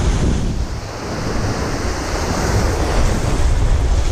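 Surf washing and foaming over a shallow rocky reef, with wind buffeting the microphone in a heavy low rumble.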